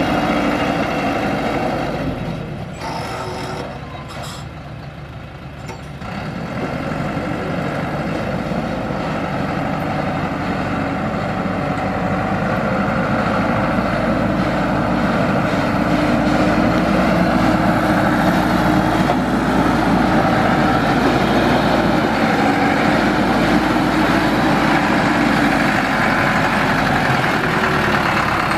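THACO Forland dump truck's diesel engine running as the loaded truck drives up a dirt track; quieter a few seconds in, then louder and steady from about six seconds on.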